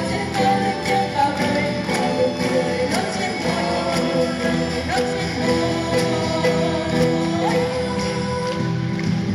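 A youth vocal group singing in chorus, accompanied by acoustic guitars, over a steady beat about twice a second.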